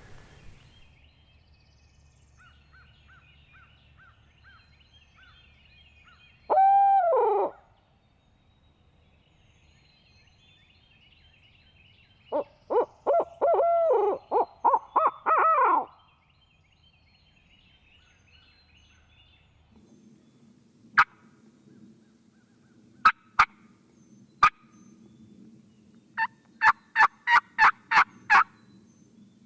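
Owl-style hooting in a barred owl's pattern: one long falling hoot, then a run of hoots with the last notes dropping in pitch. Sharp clicks follow, a run of about eight coming quickly near the end, over faint songbird chirps.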